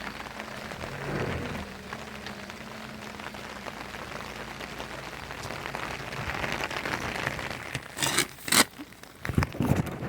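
Steady rain falling, a continuous even hiss. Near the end, two loud sharp knocks stand out above the rain.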